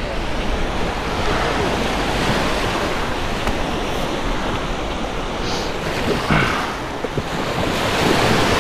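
Small surf breaking and washing up over sand in swells, with wind rumbling on the microphone.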